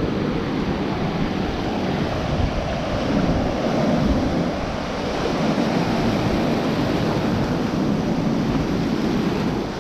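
Ocean surf washing in around a person wading in shallow water, a steady rush of breaking waves with wind rumbling on the action camera's microphone.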